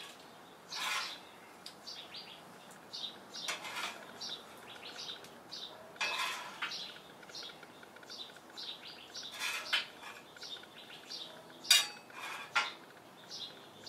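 Stainless steel bench scraper scraping across a steel flat-top griddle in about half a dozen separate strokes, pushing cooked shrimp off the surface, with one sharp metal clank near the end.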